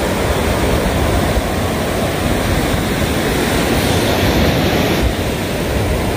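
Steady, loud noise of wind buffeting the microphone, mixed with the wash of small waves breaking on a sandy shore.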